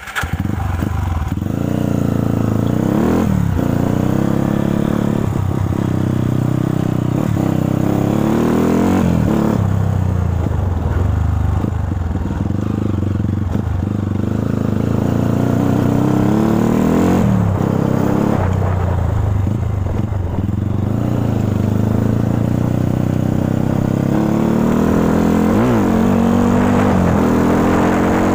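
Yamaha Scorpio trail bike's single-cylinder four-stroke engine under way on a rough dirt trail, its pitch rising and falling again and again as the throttle opens and closes, with a few short knocks.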